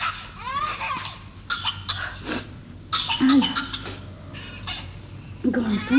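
Crying: short gasping, coughing sobs with a brief wail about three seconds in.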